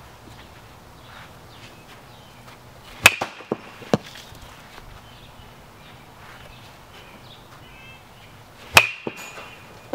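Baseball bat hitting a ball off a batting tee twice, about three seconds in and again near the end, each a sharp crack with a brief ring, the first followed by a few lighter knocks.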